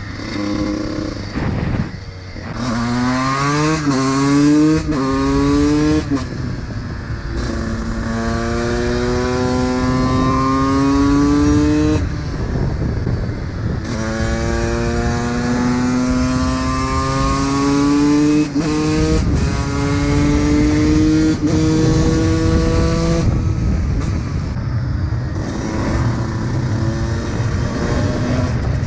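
2006 Honda CR125's 125 cc two-stroke single accelerating hard through the gears. The pitch climbs in each gear and drops back at each shift: three quick shifts first, then several long pulls, with the revs falling away near the end.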